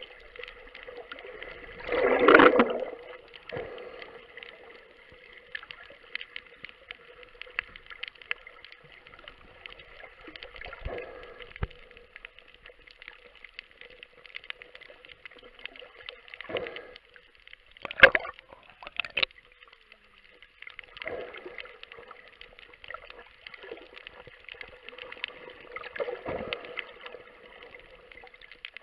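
Underwater sound: a steady crackle of many fine clicks, with short gurgling bursts of bubbles every few seconds, the loudest about two seconds in.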